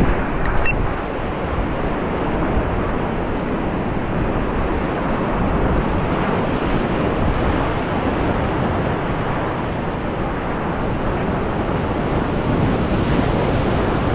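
Ocean surf breaking and washing over rocks, a steady rush of churning water, with wind blowing on the microphone.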